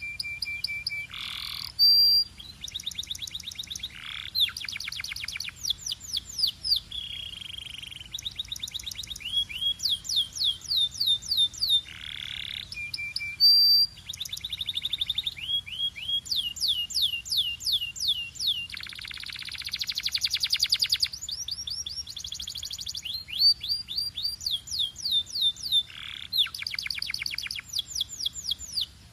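Belgian canary singing a continuous song of rapid trills and rolls, strings of fast repeated chirps and quick falling notes, with short held whistles between, changing phrase every second or two.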